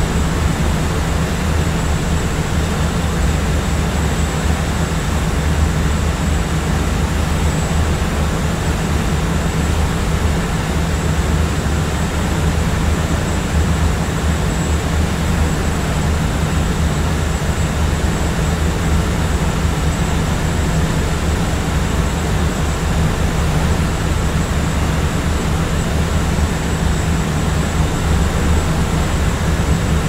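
Jet airliner cabin noise in cruise flight: a steady, even rush of engine and airflow with a low hum, and a thin high whine on top.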